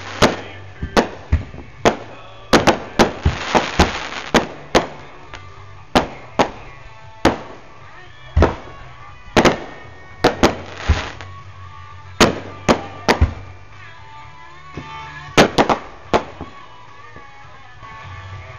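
Aerial fireworks bursting in rapid clusters of sharp bangs and crackles, thinning out to an occasional pop after about sixteen seconds.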